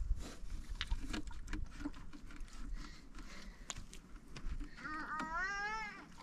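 An animal bleating once near the end, a quavering call about a second long, after a run of scattered light knocks and clicks.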